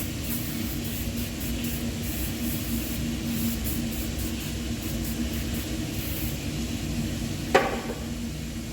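Steady low hum of plant-room machinery, with faint irregular scratching ticks through most of the first six seconds and a single sharp knock about seven and a half seconds in.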